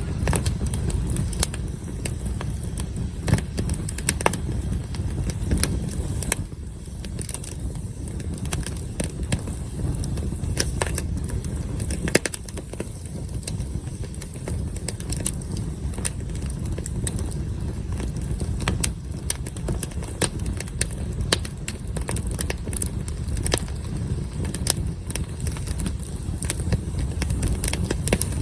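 Wood campfire crackling, with many scattered sharp pops and snaps over a steady low rumble.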